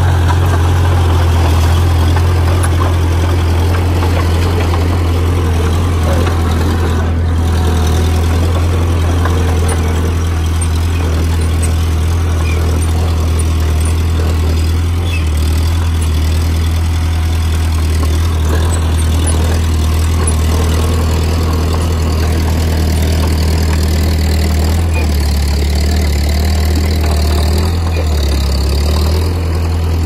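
Heavy earthmoving machine's diesel engine running at a steady speed: a deep, even drone that wavers slightly near the end.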